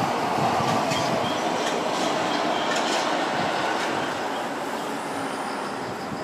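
Jet engine noise of a climbing Fuji Dream Airlines Embraer regional jet after take-off: a steady rushing roar that slowly fades over the last couple of seconds as the aircraft draws away.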